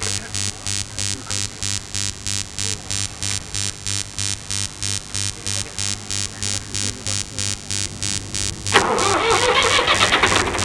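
Tractor engine being cranked on the starter, an even pulsing about three times a second, until it catches about nine seconds in and runs up with a rising note.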